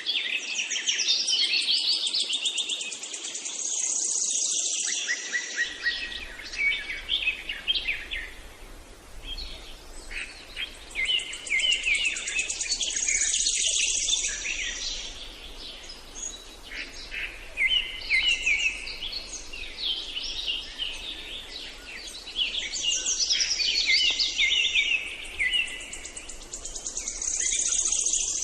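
Songbirds chirping and trilling in a dense chorus of quick, high notes, coming in long phrases that swell and ease off about every ten seconds, over a faint steady hiss.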